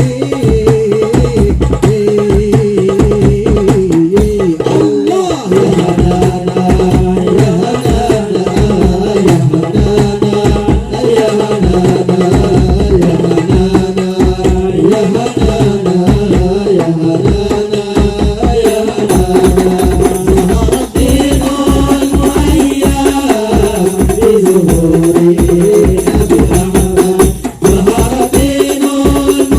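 Hadroh ensemble: frame drums struck in a fast, dense rhythm under a sung melody.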